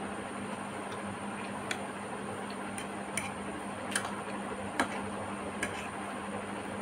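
A person eating noodles, close to the microphone: a series of small sharp clicks, about one a second, over a steady hiss and low hum.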